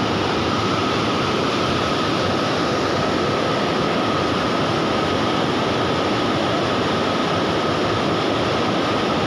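Steady rushing of river water pouring over a low concrete weir, with a thin steady high whine over it.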